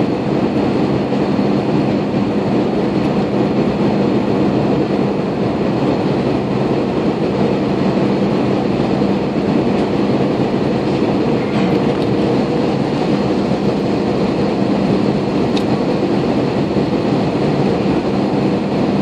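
Jet airliner cabin noise at a window seat beside the turbofan engine: a loud, even rush of engine and airflow with a steady low hum, unchanging throughout.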